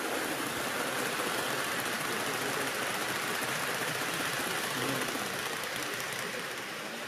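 HO-gauge model train with blue passenger coaches running past on the layout track: a steady rolling rattle of metal wheels on rail that swells as the coaches go by and eases off near the end as the train moves away.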